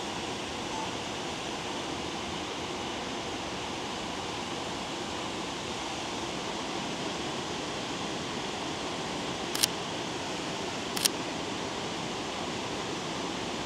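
A large waterfall: a steady rush of falling water. Two short sharp clicks sound over it about ten and eleven seconds in.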